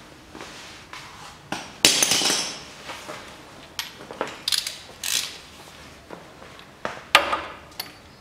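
Metal hand tools clinking and clattering: a ratchet with a 24 mm socket being handled and fitted to a front differential's fill plug. There are several sharp clinks and a louder rattling clatter about two seconds in.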